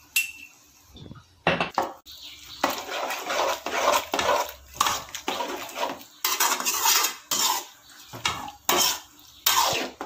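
Perforated metal ladle scraping and clattering against the side and bottom of a large metal pot as chopped raw mango pieces are stirred, in uneven strokes starting about a second and a half in.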